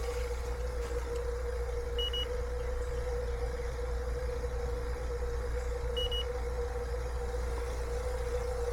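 Vacuum pump running with a steady hum as it pulls a vacuum on an air-conditioning system's refrigerant lines. A short high beep sounds twice, about four seconds apart.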